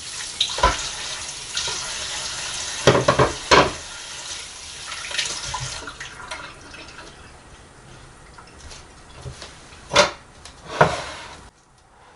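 Kitchen tap running into the sink during washing up, with dishes knocking against each other. The water shuts off about halfway through, and two loud clunks follow near the end.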